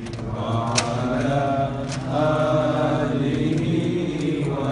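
Male voices chanting a devotional Arabic invocation in slow, drawn-out notes, blessings (salawat) on the Prophet Muhammad. Two sharp clicks come about a second apart, near the start.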